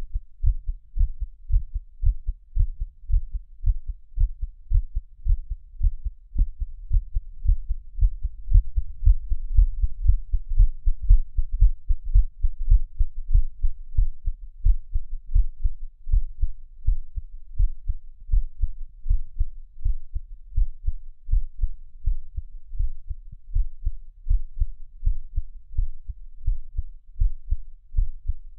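A person's heartbeat recorded close up: a regular run of low, dull thumps.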